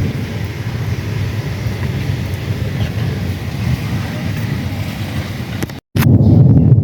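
Steady low rumbling noise of a moving vehicle, with wind buffeting the microphone. Near the end the sound cuts out for a split second and comes back louder.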